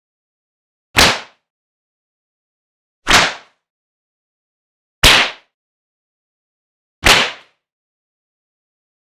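Cartoon face-punch sound effect: a sharp slap-like whack that fades within about half a second, played four times about two seconds apart.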